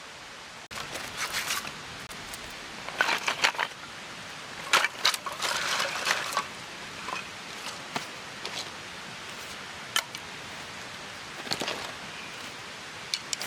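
Handling noises: scattered clicks, clinks and short rustling bursts, busiest in two spells in the first half, over a steady hiss.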